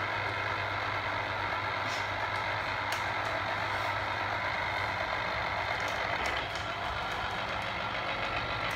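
Electric citrus juicer's motor running steadily, its reamer spinning as orange halves are pressed down onto it.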